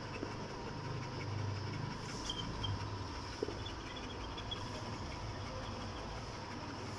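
A Rottweiler breathing and rustling close to the microphone while a hand strokes its head, with low rumbles and a few small clicks over a faint steady hum.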